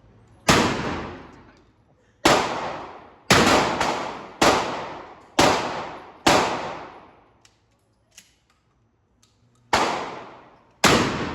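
Draco AK-pattern pistol fired shot by shot: about nine loud gunshots at uneven spacing, some in a quick pair, each with a long echoing decay. There is a pause of about three seconds before the last two shots.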